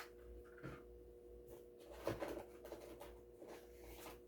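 Faint handling sounds of packaged die-cast toy cars: a few soft rustles and light taps over a steady low hum.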